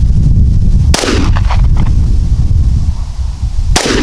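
Two shots from a Smith & Wesson SD9VE 9mm pistol, one about a second in and one near the end, each with a short echo. Strong wind buffets the microphone as a steady low rumble throughout.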